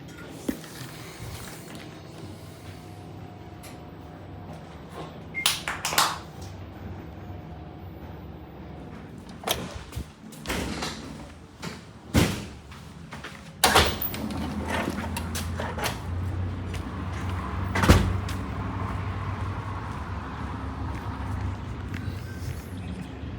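A series of sharp knocks and clunks, several in quick succession about six seconds in and the loudest near the end. From about halfway a steady low hum sets in and continues.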